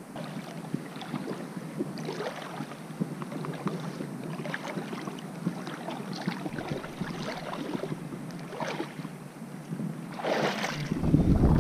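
Shallow salt water splashing and sloshing in irregular small bursts. Near the end, wind buffets the microphone with a rising low rumble.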